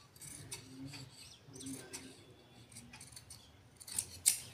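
Large tailor's scissors cutting through two layers of fabric: faint rubbing and scraping of the blades through the cloth, then two sharp snips near the end.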